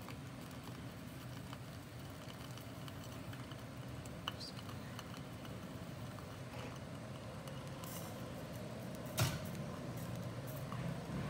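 Gas stove burner running steadily with a low rumble under a metal can set on the flame. A single sharp metallic knock comes about nine seconds in.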